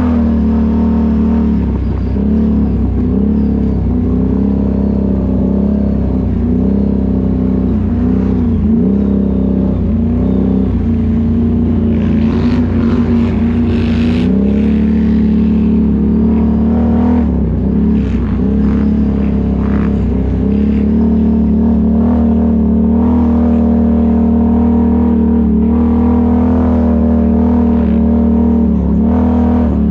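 ATV engine running with the throttle worked on and off, its pitch rising and falling, and a rushing noise for a few seconds near the middle.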